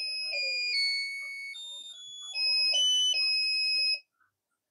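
An electronic beeping tune from a kit's music IC, broadcast by the snap-circuit transmitter and picked up on a medium wave radio held beside it. It is a string of high single-note tones that change pitch several times a second, and it cuts off suddenly about four seconds in.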